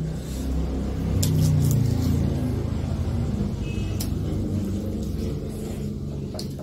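A low rumble that swells about a second in and then slowly eases off, with a few faint clicks over it.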